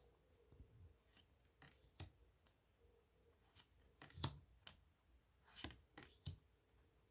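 Tarot cards being handled and laid down one at a time: soft, irregular flicks and taps of card stock, about ten in all, the sharpest about four seconds in.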